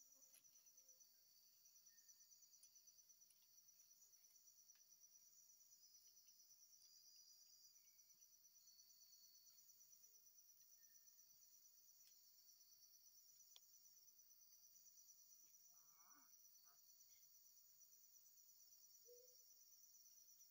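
Faint, steady chorus of forest insects trilling high-pitched, with a few faint clicks.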